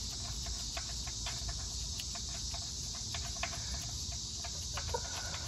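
Faint irregular clicks as a gloved hand turns the oil pan drain bolt out by hand, over a steady high-pitched chirring of insects.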